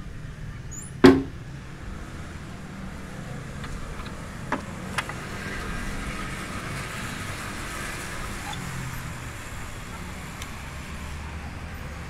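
Window and wooden louvred shutters pushed open by hand: a loud knock about a second in and two sharp clicks near the middle. Then the steady noise of street traffic below comes in through the open window.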